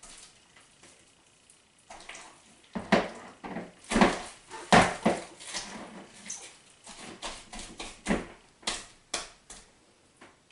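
Hands mixing and kneading slime in a bowl: a run of irregular wet squishes and smacks, with a few knocks against the bowl, starting about two seconds in and easing off near the end.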